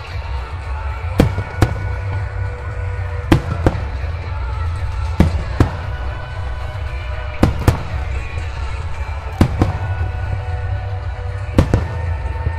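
Aerial firework shells bursting in pairs of sharp bangs, a pair about every two seconds, over music playing through loudspeakers.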